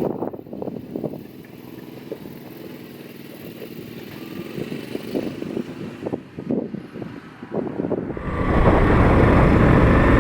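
An ATV engine, low and uneven at first. About eight seconds in it suddenly becomes much louder and runs steadily as the ride gets under way.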